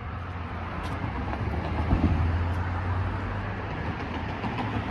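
Steady low rumble of a vehicle, swelling briefly louder about two seconds in.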